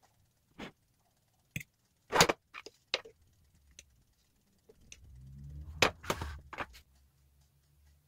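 Kitchen clatter of a frying pan and utensils knocking against a china plate while a steak is served from the pan: a string of sharp knocks, the loudest about two seconds in and another cluster around six seconds.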